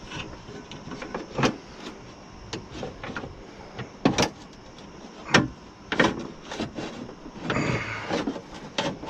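Irregular clunks and clicks from a car's window regulator and track being worked loose inside the door, with a short scraping rattle near the end.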